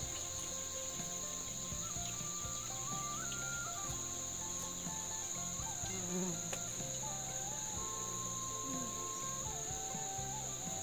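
Steady high-pitched chorus of crickets and other insects, unbroken, with a few faint clicks.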